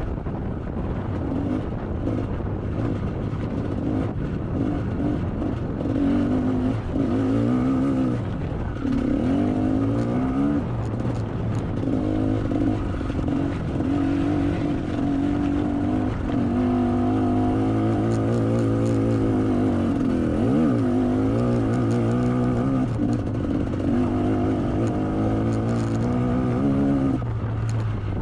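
Two-stroke motocross bike engine, a GasGas MC125, being ridden hard, its note rising and falling over and over as the throttle is opened and closed.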